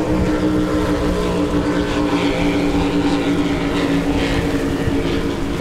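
Twin outboard engines of an RNLI rigid-inflatable lifeboat running at speed, a steady drone that holds its pitch.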